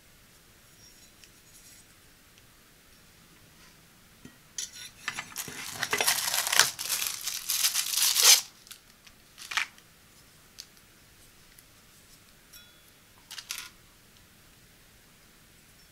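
Thin plastic packaging sleeve crinkling and tearing open as a knife is unwrapped. A loud stretch of crackling lasts about four seconds mid-way, followed by two brief rustles later.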